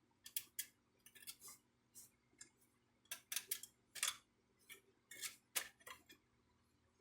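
Brother ink-tank printer parts being handled and worked on: an irregular string of sharp clicks and short scrapes.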